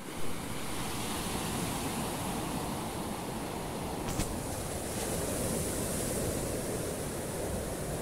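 Black Sea surf: small waves breaking and washing up a sandy beach in foam, a steady wash of water.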